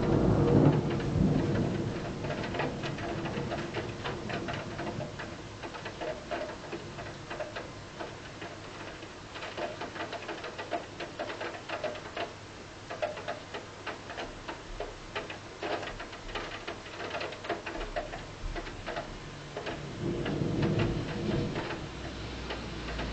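Rain falling, with drops tapping irregularly on a hard surface. A low rumble swells at the start and again near the end.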